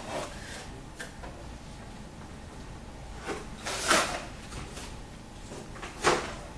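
Plastic clicks and clunks of a multifunction copier's document feeder and top cover being handled: a small click about a second in, a louder clunk with a short scrape about four seconds in, and a sharp clunk near the end.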